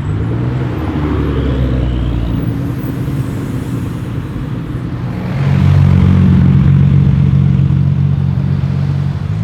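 Jaguar F-Type V8 R's supercharged 5.0-litre V8 exhaust running. The engine note shifts in pitch in the first second, then grows louder from about five seconds in and holds steady.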